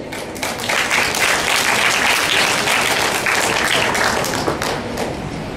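Audience applauding: many people clapping in a dense patter, easing slightly near the end.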